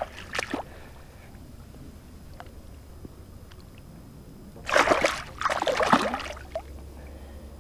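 A released bass splashing in shallow water as it bolts from the hand, two quick splashes close together about five seconds in.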